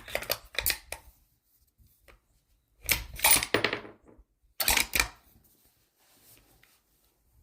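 A bolt-action rifle being handled at the shooting bench: bursts of sharp metallic clacks and knocks. A cluster comes in the first second, the loudest burst, with a short tail, about three seconds in, and another near five seconds.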